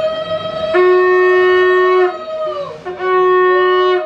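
Two conch shells (shankha) blown together in long held notes. The higher one sounds almost throughout, its pitch sagging and rising at the ends of each breath; the lower one comes in two long blasts with a short break between.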